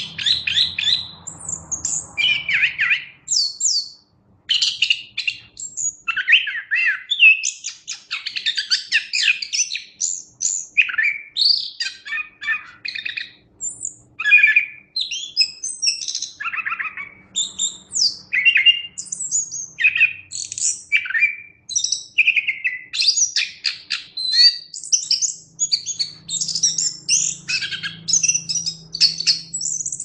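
Chestnut-capped thrush (anis kembang) singing a continuous, rapid stream of varied high chirps, whistles and trills.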